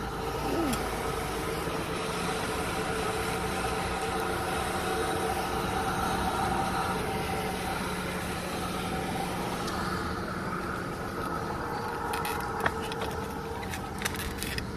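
A motor vehicle engine running steadily, a hum with several steady tones under a noisy background. There are a few sharp clicks near the end.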